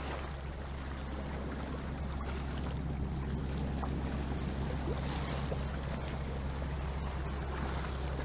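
Small sea waves washing and lapping against shoreline rocks, an even splashy hiss, with a steady low wind rumble on the microphone.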